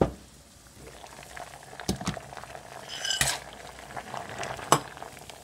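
Kitchen cookware being handled over a pot at the boil: a steady bubbling hiss, with a few sharp knocks and a short metallic clink about three seconds in.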